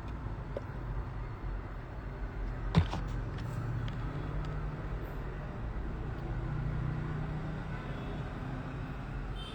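Steady low electrical hum from running repair-bench equipment, with one sharp click or tap about three seconds in and a few faint ticks.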